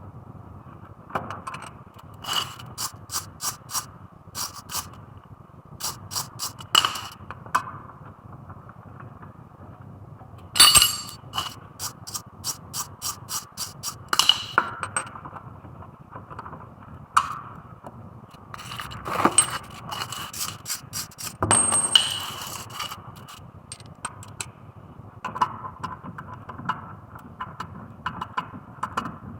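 Ratchet wrench clicking in several short runs of evenly spaced clicks, about three to four a second, as bolts are turned during a brake pad change. A loud metallic knock with a brief ring comes about eleven seconds in, and a longer scrape a little past the twentieth second.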